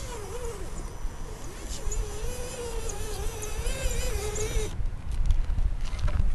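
Axial SCX10 RC crawler's electric motor and geartrain whining, the pitch wavering up and down with the throttle as it crawls over loose rocky dirt. About two-thirds of the way in the whine stops and gives way to crackling and crunching of tyres and stones close by.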